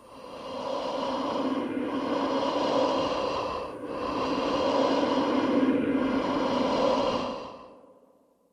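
Ghostly breathing sound effect: slow, heavy, drawn-out breaths, about four of roughly two seconds each, with a steady hum-like pitch running through them. It fades out near the end.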